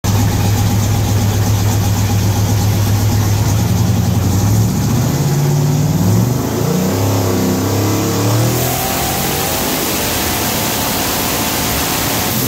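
Twin-turbo 427 ci LT5 V8 on an engine dyno, idling steadily, then revved up and down from about five seconds in with its pitch climbing. A loud hiss joins at about eight and a half seconds in.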